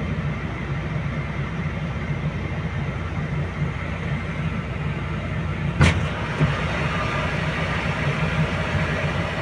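Volvo crawler excavator's diesel engine running steadily under load as the machine tracks up onto a lowbed trailer. A single sharp knock comes about six seconds in.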